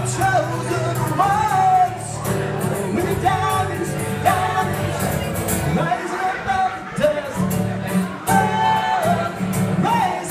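Live singing accompanied by a strummed acoustic guitar, the sung melody running on without a break.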